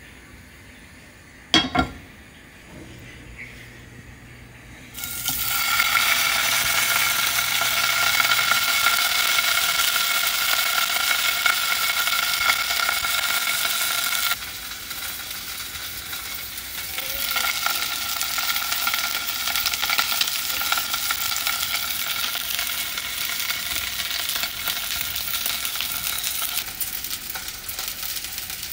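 A5 wagyu steak sizzling as it fries in hot oil in a pan, with a dense crackling that starts suddenly about five seconds in and turns quieter just after the middle. A single sharp knock comes shortly before the sizzling starts.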